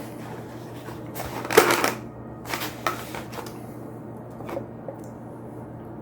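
Rustling and light clatter of a takeout food container being handled and closed, in a few short bursts, the loudest about a second and a half in, over a steady low room hum.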